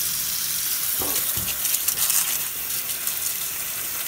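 Tap water running steadily as a slimy fish bowl is rinsed out by hand, with a few light knocks about a second in.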